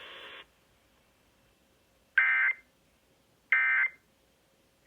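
Emergency Alert System end-of-message data bursts: short, identical, warbling digital tone bursts about 1.35 seconds apart, marking the end of the alert. Two full bursts sound, with a third starting just at the end. Before them, the broadcast's background hiss cuts off about half a second in.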